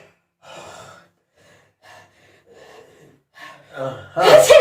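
A person sneezing: faint sniffs and breaths, then near the end a quick rising intake and one loud, sudden sneeze.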